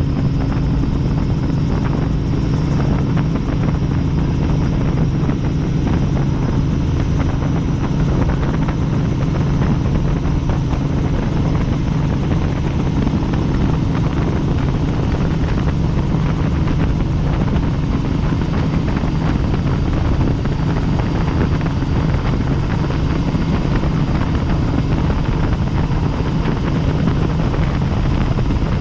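Helicopter in flight: loud, even rotor and engine noise with a constant low hum.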